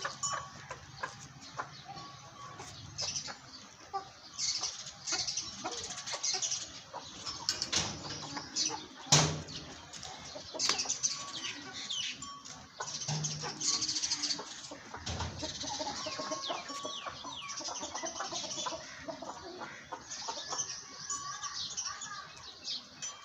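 Birds calling: many short, high chirps and calls overlapping throughout, with a few low thumps, the loudest about nine seconds in.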